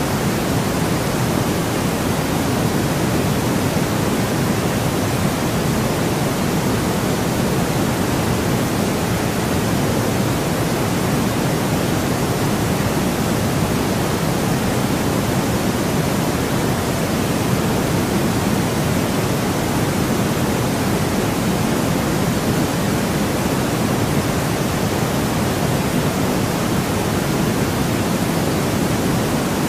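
Steady artificial white noise for sleep: an even, unbroken hiss that never changes, fuller in the low and middle range than at the top.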